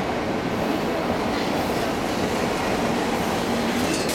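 Shinkansen 300 series electric train running slowly on its arrival: a steady rumble of steel wheels on the rails.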